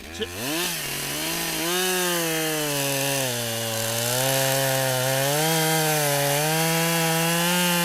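Husqvarna 572XP chainsaw with a 28-inch bar revving up to full throttle and bucking a black locust log. Its engine pitch dips and recovers as the chain cuts under load.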